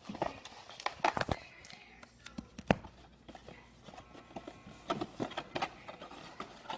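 Baseball cards being handled and flipped through, with scattered light clicks and rustles.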